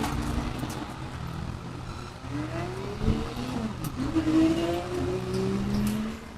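Motor vehicle engine sounds: a steady low hum with engine notes rising and falling in pitch, as in revving.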